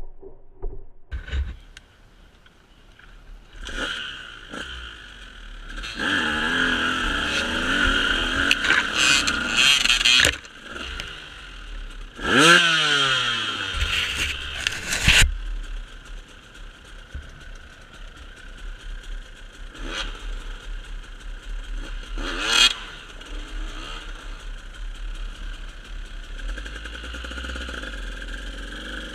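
Motorcycle engine revving up and down several times, with the biggest surges about a third and halfway through, a short rev later on, and running steadily in between.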